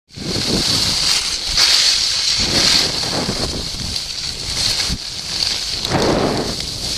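Wind rushing over the microphone while skis scrape across packed snow, the hiss swelling and fading with each turn.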